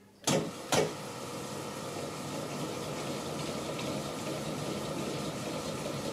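Metallographic grinder-polisher running at the 9-micron diamond polishing stage, its turntable and sample-holder head spinning on the polishing disc with an even whirring and a faint steady hum. Two short, sharp sounds come within the first second, before the running settles in.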